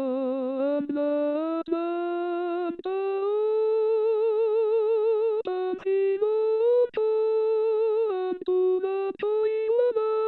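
The soprano line of an SATB choral piece sounded by a single wordless voice with even vibrato, moving note by note. It starts on a held low note, steps upward and sustains higher notes, with brief breaks between phrases.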